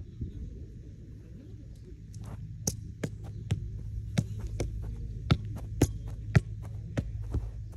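A steady low hum with a throbbing undertone, joined about two seconds in by sharp ticks at about three a second.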